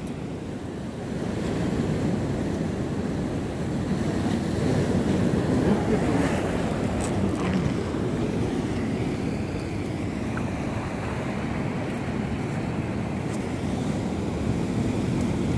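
Sea surf with wind buffeting the microphone: a steady rushing noise.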